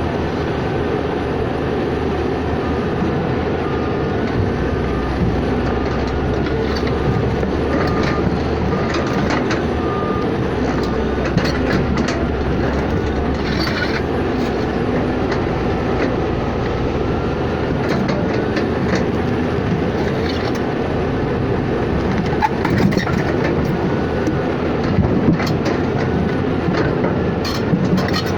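Steady rumble of a moving vehicle, with scattered light clicks and faint gliding squeaks.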